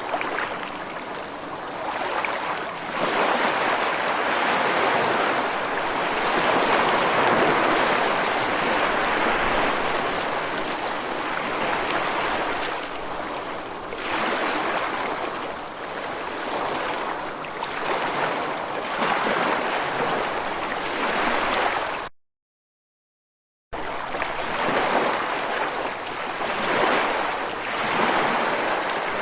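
Ocean waves breaking and washing on a shore: a steady rushing hiss that swells and fades every few seconds. The sound drops out completely for about a second and a half about two-thirds of the way through.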